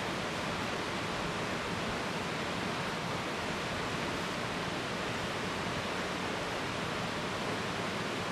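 Steady, even rushing hiss with no breaks.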